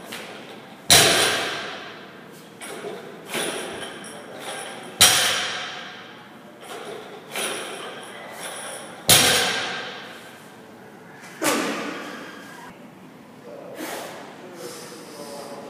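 A loaded barbell with bumper plates is set down or dropped on the gym floor after each high pull. Each landing is a heavy thud with a short metallic ring from the bar and plates, four times, roughly every three to four seconds. Lighter knocks and plate rattles come in between as the bar leaves the floor.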